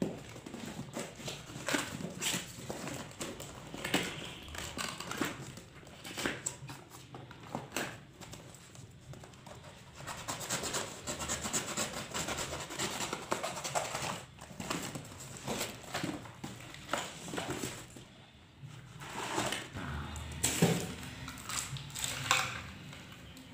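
Cardboard box being unpacked by hand: packing tape cut with a knife, the flaps pulled open and the parts lifted out, making an irregular run of rustling, scraping and small knocks.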